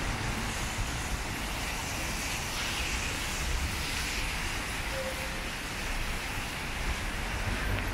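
Heavy rain falling, a steady even hiss, over a low uneven rumble.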